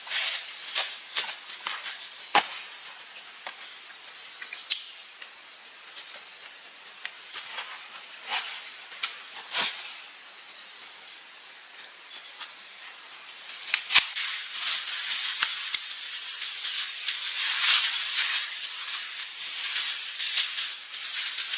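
A forest insect trilling on one high note in repeated bursts of about a second, with scattered sharp snaps and clicks. From about 14 seconds in, a sharp crack is followed by dense, louder rustling and crackling that buries the trilling.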